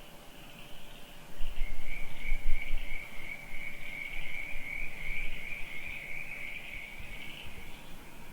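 Night chorus of crickets trilling steadily at a high, even pitch. A low rumble comes in about a second in and fades after about three seconds.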